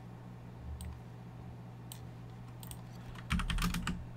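Typing on a computer keyboard: a few scattered clicks, then a quick run of keystrokes a little over three seconds in, the loudest part. A steady low hum runs underneath.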